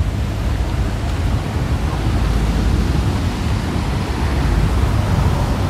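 Steady outdoor street noise: wind rumbling on the microphone over the hiss of traffic on the road alongside.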